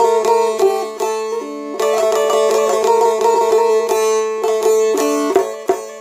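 Çifteli, the Albanian long-necked folk lute, played solo: a quick picked melody over a steady drone string.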